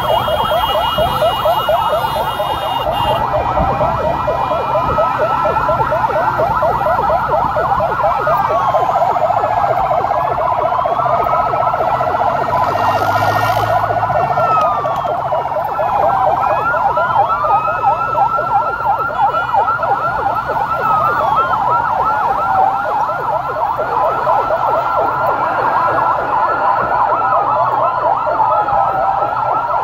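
Several vehicle sirens sounding together and continuously, one in a fast yelp and others in a slow rising-and-falling wail.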